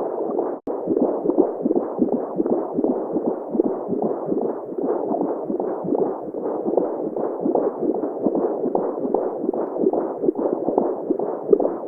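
Simulated womb sound: a muffled, whooshing heartbeat pulse repeating quickly and evenly, with no high sounds in it. It cuts out for an instant just after the start.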